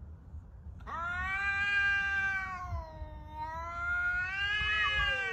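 Cat caterwauling: one long, wavering yowl that begins about a second in, sags in pitch midway and swells again. It is the warning yowl of two cats squared off nose to nose in a territorial standoff.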